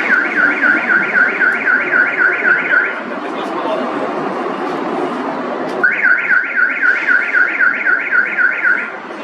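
A car alarm's warbling siren, about four sweeps a second, sounding in two runs of about three seconds with a pause between. Under it is the steady roar of a Boeing 727's jet engines climbing away after takeoff.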